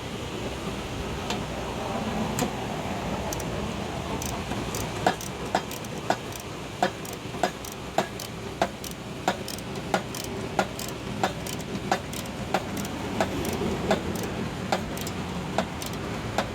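Regular metallic clicking of a hand tool at work on the mower deck's spindle mounting, about three clicks every two seconds, starting about five seconds in, over a low steady hum.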